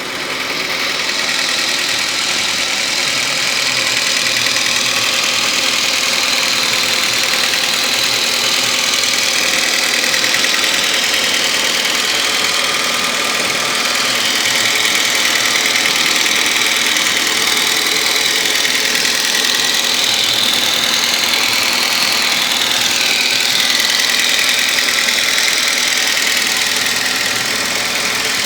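Audi/VW 1.8-litre 20-valve engine (engine code ADR) running steadily with a knocking noise.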